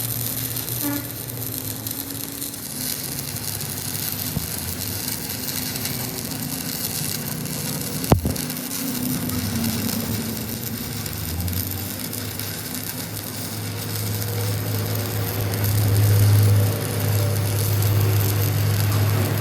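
A machine running steadily with a low hum that swells for a few seconds near the end, and one sharp click about eight seconds in.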